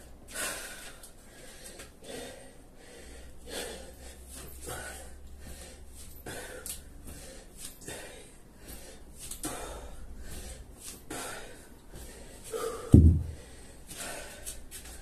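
A man breathing hard from burpees and kettlebell swings, with forceful exhales about every one and a half seconds. A heavy low thud comes about thirteen seconds in.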